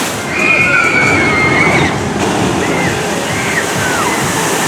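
Steady rushing, sloshing water, with a few short high-pitched calls or cries that rise and fall over it.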